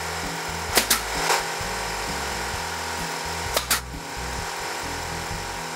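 Brad nailer firing brads into a shelf: a few sharp shots, a quick pair and a single one about a second in, then another quick pair about three and a half seconds in, over a steady background hum.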